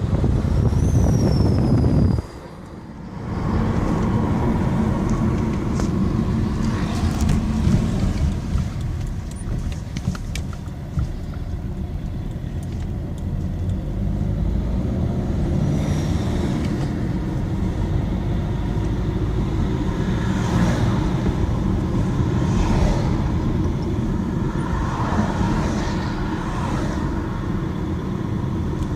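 Opel Astra J 1.3 diesel engine running under hard acceleration, with a whistle that comes in around 2000 rpm. The sound drops briefly about two seconds in, then runs on steadily, with faint whistling sweeps rising and falling over the engine noise later on.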